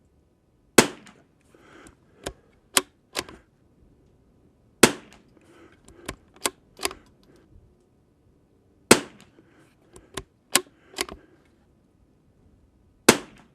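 Tikka T1X .22 LR bolt-action rifle fired four times, about four seconds apart, each sharp crack followed by three or four lighter metallic clicks as the bolt is worked to chamber the next round.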